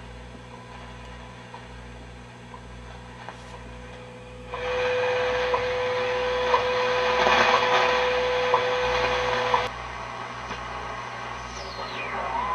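Shortwave time signal from the US time station WWV on 2.5 MHz, received through the speaker of a Grunow 1191 all-wave radio. Faint static at first; then, about four and a half seconds in, loud static with a steady 500 Hz tone and a short tick every second, which cuts off suddenly near ten seconds. A falling whistle comes near the end.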